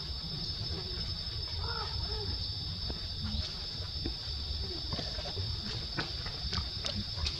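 Steady high insect chorus of crickets or cicadas, with a low rumble underneath and a few faint clicks in the second half.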